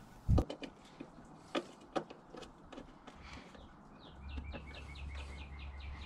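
Faint clicks and taps of a screwdriver and hand work at the truck's firewall, then from about three seconds a rapid run of short, high chirps, about five or six a second, over a low hum.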